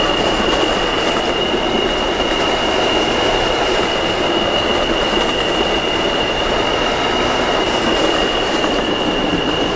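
New York City subway train running through the tunnel, heard from inside the car: a steady rumble and rush of wheels on rail, with a high-pitched squeal held at one pitch throughout.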